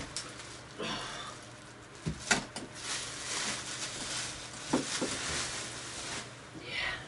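Plastic wrapping rustling and crinkling as it is pulled off a hard guitar case, with a few sharp knocks of the case, about two seconds in and again about five seconds in.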